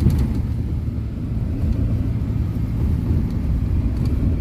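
Steady low rumble of road and engine noise inside a moving car, with a few faint light rattles.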